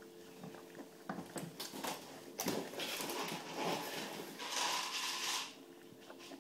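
Japanese Spitz puppy lapping milk from a bowl: a run of small wet clicks, with a louder stretch of rustling noise through the middle, over a faint steady hum.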